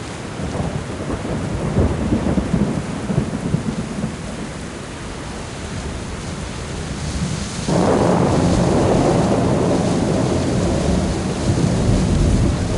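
Thunderstorm: steady rain with low rolling thunder, and a louder thunderclap breaking suddenly about eight seconds in and rumbling on.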